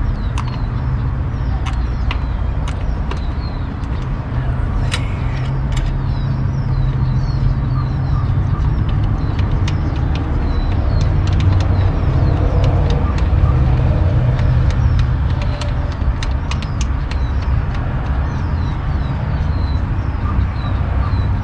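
Light metallic clicks and clinks of hand tools and fittings being worked at a carburetor's fuel inlet, over a steady low rumble.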